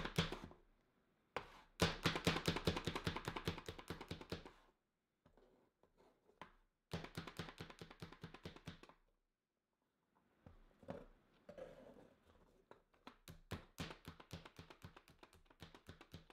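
Hand-operated plunger food chopper being pumped rapidly to dice carrots, a quick run of plastic clacks and blade chops several times a second. It comes in bursts of a few seconds with short pauses between them.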